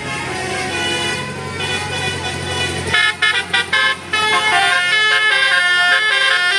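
Telolet "basuri" multi-tone bus horn playing a stepped melody: a few short toots about three seconds in, then a longer run of changing notes. Before that, the bus engine's low running hum sits under the horn tones and fades out as the tune starts.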